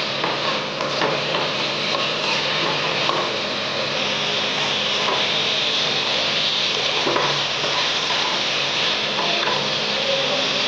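A spatula stirs fried potatoes and pointed gourd through a masala gravy in a wok, over a steady sizzle, with a few faint scrapes of the spatula against the pan.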